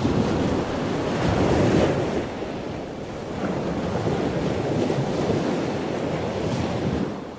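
Sea waves washing on a shore, a steady rush that swells and ebbs every couple of seconds, fading out near the end.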